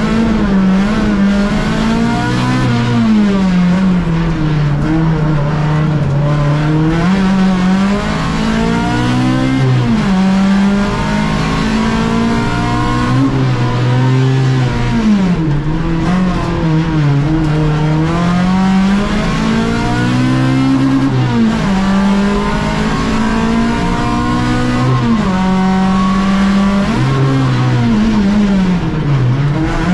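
Fiat Uno race car's engine heard from inside the cabin, revving hard and dropping back over and over as the car accelerates between corners. The pitch climbs and falls every few seconds, with sharp drops about a third of the way in, halfway, about two-thirds in and near the end.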